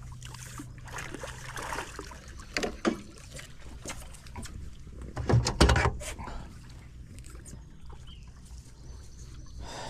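Handling noise aboard a fishing boat while a freshly caught catfish is landed: scattered knocks and rustles, with a cluster of heavy thumps about five and a half seconds in.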